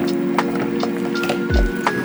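Background music: a beat with a deep kick drum and ticking hi-hats over held chords, the kick landing once about one and a half seconds in.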